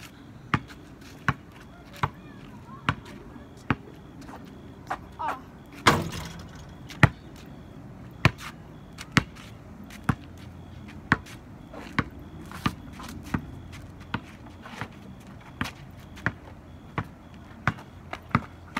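Basketball being dribbled on asphalt pavement: sharp bounces in a steady rhythm, a little over one a second. About six seconds in there is one louder impact with a ringing tail.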